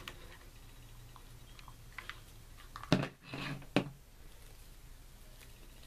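Craft handling noise: a plastic hot glue gun is set down on the table with a sharp clack about three seconds in, followed by a brief rustle of organza ribbon and a second clack.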